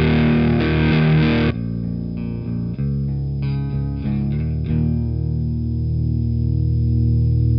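Distorted electric guitar riff played through a Sunn Model T-style amp-in-a-box pedal, first the EarthQuaker Devices Acapulco Gold, then the Kuro Custom Audio Exegol. About a second and a half in, the tone suddenly loses much of its high fizz. A chord is left ringing from about five seconds in.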